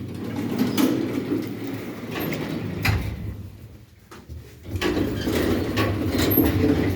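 Automatic sliding doors of an MLZ passenger elevator from about 1994 moving with a rumble and sharp clicks. The rumble comes in two runs with a lull of about a second between them.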